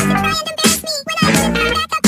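Meme sound mashup: music chopped into short spliced snippets with pitched, voice-like sounds, starting and stopping abruptly several times.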